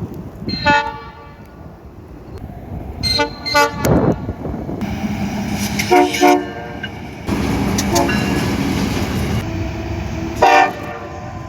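Train horns sounding about five short toots, two of them close together near the middle, over the rumble of trains running on the rails. The background changes abruptly several times, as the sound cuts between different trains.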